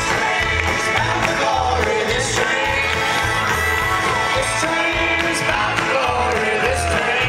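Live band playing a folk-rock song, with voices singing over acoustic instruments and a steady low beat.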